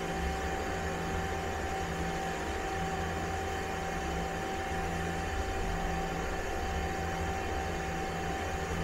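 Steady hum of a Mazak CNC lathe standing powered up: a low drone with a constant whine over it.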